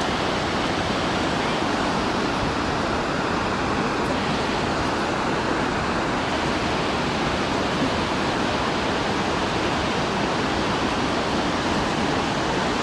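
Shōmyō Falls, a very tall waterfall, with water crashing down in a steady, unbroken rush.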